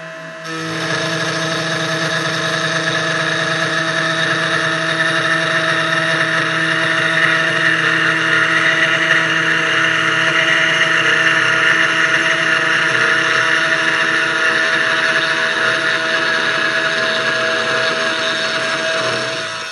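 Spindle of a CNC 1610 Pro desktop router running steadily. About half a second in, the much louder noise of its 3 mm end mill cutting a 0.4 mm-deep pass joins it. The cutting noise stops near the end as the bit leaves the cut, leaving the spindle running alone.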